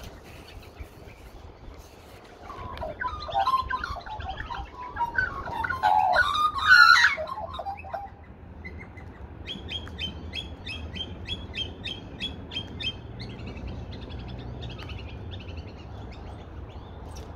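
Australian magpies calling at close range: a stretch of warbling, squawking calls that peaks about seven seconds in, then a quick run of short high chips, about four a second.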